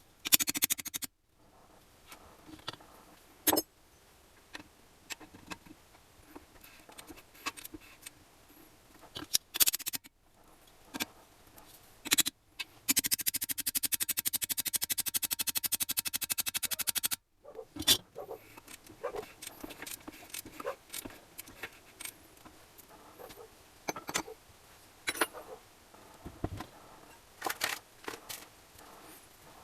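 Metal hand tools and engine parts clinking and scraping on a workbench during engine assembly, with scattered knocks. About halfway through comes a run of rapid, even clicks lasting about four seconds.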